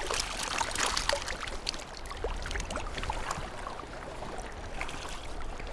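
Water pouring and dripping off a keepnet's mesh as it is lifted and tipped, with small splashes as the roach and perch drop back into the water. A dense flurry of splashes and drips thins out after about two seconds, over a low wind rumble.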